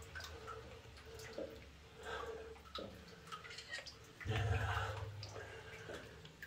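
Water sloshing and lapping as someone wades through deep water in a flooded rock mine tunnel, with a few small drips and splashes, a stronger surge of sloshing about four seconds in.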